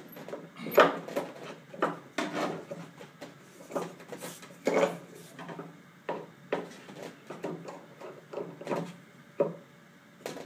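Irregular knocks and clunks as a scrap-wood clamping block is handled and worked loose against the nose of a fiberglass model-plane fuselage.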